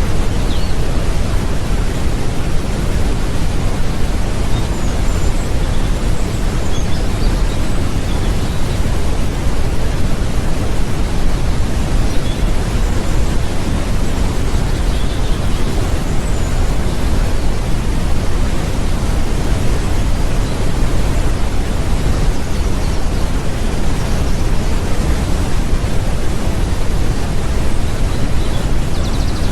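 Waterfall: a loud, steady, deep rush of falling water that never lets up.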